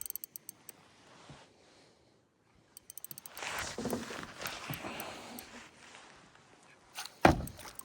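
Fishing reel clicking briefly at the start, then a hooked fish thrashing and splashing at the surface as it is brought in, with one sharp knock near the end.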